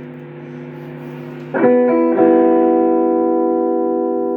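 Electric guitar played through an analog overdrive pedal: a chord is struck about a second and a half in and again half a second later, then rings out and slowly fades. It has ordinary overdrive distortion with no digital noise on top.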